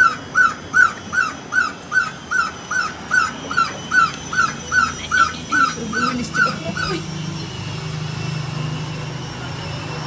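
A pet bird calling insistently, one short call after another at about two and a half a second, calling for its owner; the calls stop about seven seconds in. A low rumble follows.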